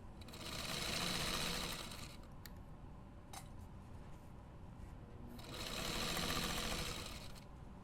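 Sewing machine stitching in two short runs of about two seconds each, with a pause and a couple of small clicks between them.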